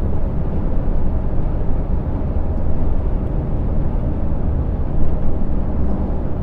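Heavy truck cruising on the road, its diesel engine and tyre noise heard from inside the cab as a steady low drone.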